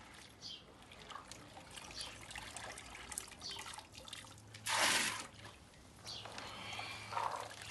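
Hands and a small bowl sloshing through red beans soaking in basins of water, with water trickling and splashing as the beans are washed. About five seconds in comes a louder, brief rush of poured water.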